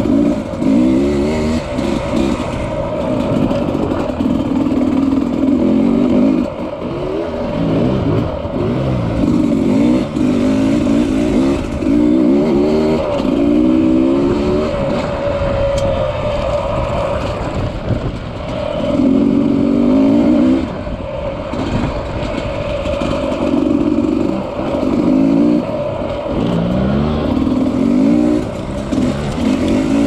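Dirt bike engine heard on board, revving up and easing off again and again, its pitch climbing in repeated sweeps as the throttle is opened and rolled off.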